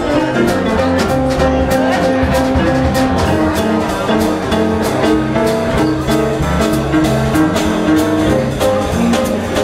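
Small jazz band playing live: an upright double bass walks a stepping bass line under a drum kit's steady cymbal strokes and piano chords, with held notes in the middle register. Recorded close up on a handheld device's built-in microphone.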